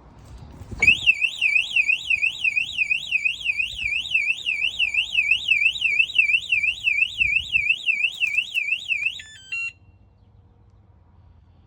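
Wireless bike alarm's siren sounding, a fast warbling tone that sweeps up and down about three times a second. It starts about a second in, ends with a few short stepped beeps, then cuts off.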